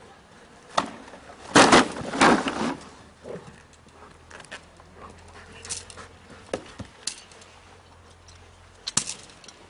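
Belgian Malinois in an object-guard exercise going at a decoy in a bite suit: a loud noisy scuffle about one and a half seconds in, lasting about a second. Scattered sharp knocks and clicks follow.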